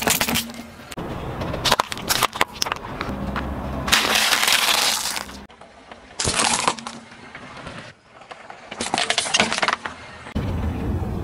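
A car tyre rolling over and crushing small plastic objects (sealed jelly cups, toy pinwheels, plastic ice-cube trays), heard as several separate bursts of cracking, snapping and crunching with short quieter gaps between them.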